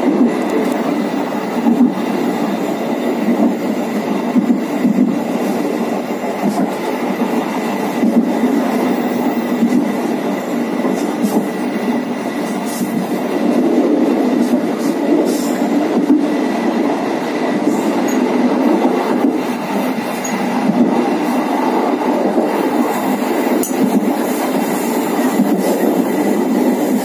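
Passenger train running along the track, heard on board at the rear: a steady noise of wheels on rail, with faint clicks now and then.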